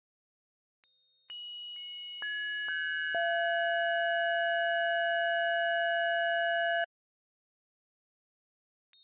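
Synthesized timbre spectrum of an old Russian church bell: the bell's partials sound as steady pure tones, entering one at a time from the highest down to the lowest and loudest over about two seconds. They then hold together as a chord and cut off all at once. A second bell's partials begin entering, again from the top, at the very end.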